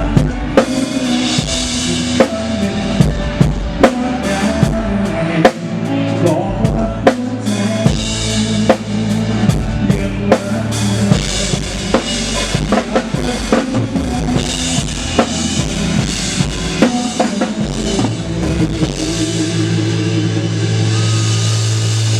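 Live band playing a drum-heavy passage: a drum kit keeps a steady beat of kick and snare hits over sustained bass notes.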